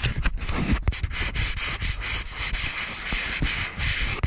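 Fingers rubbing and scratching all over a GoPro Hero 5 Black in a DEYARD aftermarket frame case, heard through the camera's own sensitive microphones as loud, continuous scratchy handling noise.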